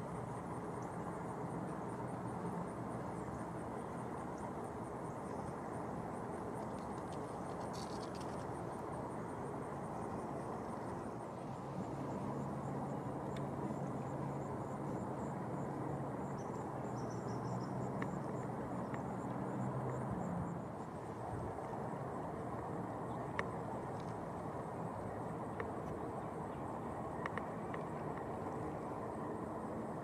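Steady outdoor background rumble of distant road traffic. A vehicle's engine hum grows a little louder from about twelve seconds in and drops away about twenty seconds in. A faint fast high-pitched pulsing sits above it.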